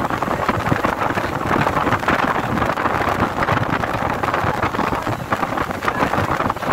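Wind buffeting the microphone, over the steady rush of a moving ship's engine and churning wake water.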